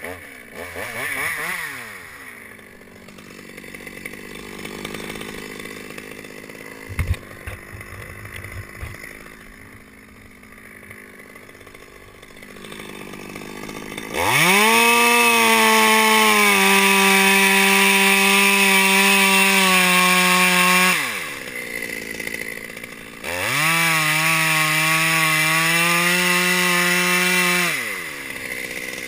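Stihl chainsaw idling, then run at full throttle twice for about six and five seconds, dropping back to idle between. Its pitch dips a little as the chain bites into the eucalyptus stem. A single knock comes about seven seconds in.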